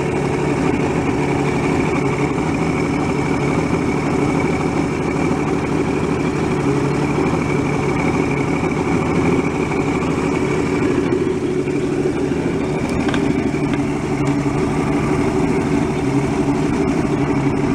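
Two-stroke outboard motor idling steadily with its cowling off, left running so crankcase pressure can charge the remote oil injection tank.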